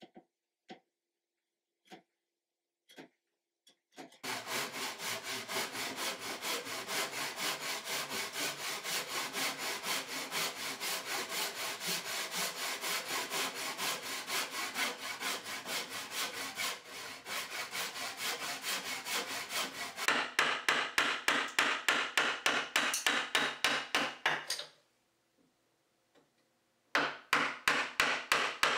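Handsaw, a backsaw, cutting across a yellow pine board in quick, even strokes that grow louder about two thirds of the way through, then stop. Before it, a few faint ticks of a marking knife scoring the wood; near the end, after a short pause, a new run of sharp strokes begins.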